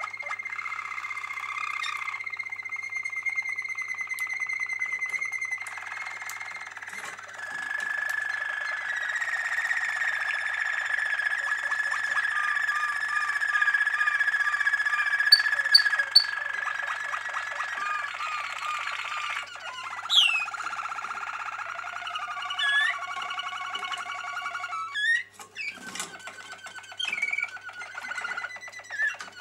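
Domestic canaries singing: long, unbroken rolls and trills, one after another, with a few sharp rising whistled notes from about two-thirds of the way through.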